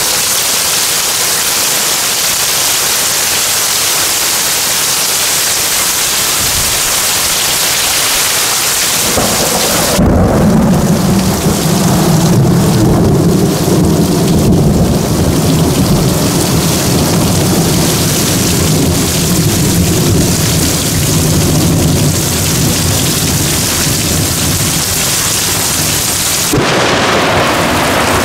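Heavy rain pouring in a severe thunderstorm. About a third of the way in, a long low rumble of thunder begins and rolls on for some fifteen seconds, then breaks off abruptly near the end, leaving the rain hiss alone again.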